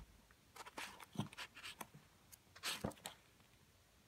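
Pages of a paperback manga being turned by hand: faint paper rustles and flicks, several short ones in the first three seconds, then quiet.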